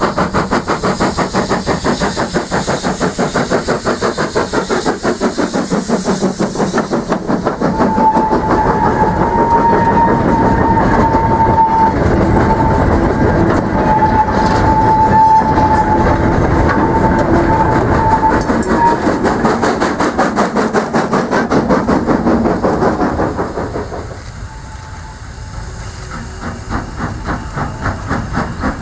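Saddle-tank steam locomotive working past at close range with a fast exhaust beat and steam hissing, followed by its hopper wagons rolling by with rail clatter and a long thin squeal. After a drop in loudness near the end, the exhaust beat of a departing train comes up again.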